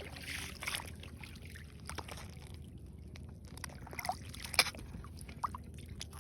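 Water gently sloshing and trickling, with a few light clicks and knocks.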